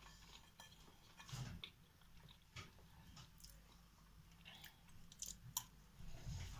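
Faint eating sounds: a spoon digging into a crumbly cracker cake, then soft chewing, with a few scattered small clicks.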